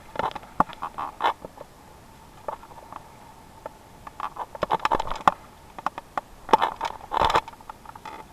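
A camera in its waterproof housing knocking and rattling against the creek stones in three irregular clusters of clicks, and taken up by hand near the end.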